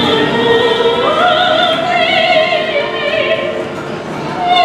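A woman singing solo into a handheld microphone, holding long notes with a wide vibrato; her voice steps up to a higher held note about a second in.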